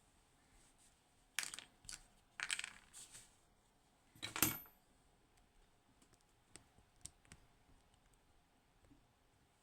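Small metal tools and parts being handled and set down on a hard surface: several bursts of clicks and clatter. The loudest comes about four and a half seconds in, with a short metallic ring, and a few faint ticks follow.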